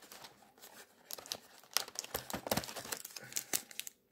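Cardboard advent calendar door opened and a plastic-wrapped Panini Premier League trading card pack pulled out and handled, crinkling and crackling in short irregular bursts.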